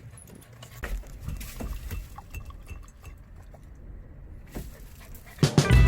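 Faint scattered clinks and knocks, then music with guitar starts loudly near the end.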